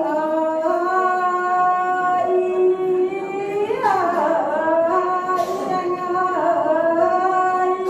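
A woman singing lượn, the northern Vietnamese Tày–Nùng folk song, into a microphone. She holds long, slightly wavering vowel notes, with a short break and a sliding turn about four seconds in before the next held phrase.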